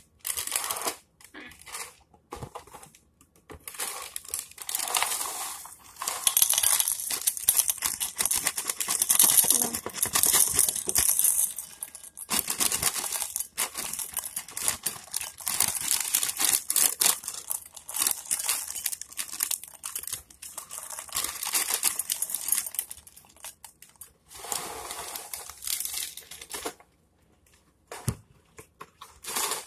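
Crinkling and rustling handling noise with many small clicks and rattles, loudest through the middle and dying away near the end.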